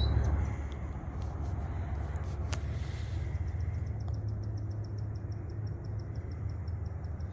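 Outdoor background of a steady low rumble, with a rapid, even run of faint high ticks starting about three seconds in.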